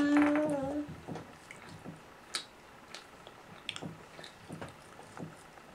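Light, irregular clicks and taps of a toddler's spoon against a bowl as she feeds herself, with soft eating sounds. A short held voice-like tone opens it.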